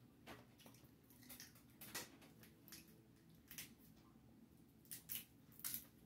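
Faint, scattered wet clicks and crackles of eating by hand: seafood shells being pulled apart and food being chewed, about eight short irregular snaps.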